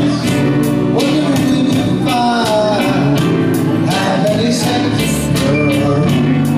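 Music playing with a singing voice over a steady drum beat.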